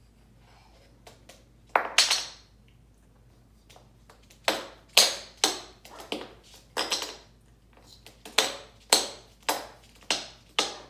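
African grey parrot hammering a small wooden block against a hardwood floor with its beak, a series of sharp wooden knocks. A pair comes about two seconds in, then a loose run of about two knocks a second.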